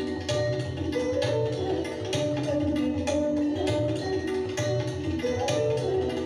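Indian instrumental music: tabla drumming in a steady rhythm under a melody of changing notes.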